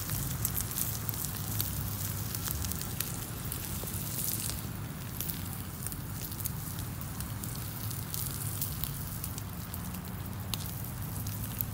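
Tomahawk steak searing on a grill grate over a hot fire: a steady sizzle with many sharp crackling pops, over a low steady rumble.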